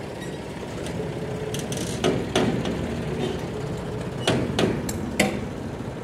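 Farm tractor engine running steadily, with five sharp knocks: two about two seconds in and three more between four and five seconds in.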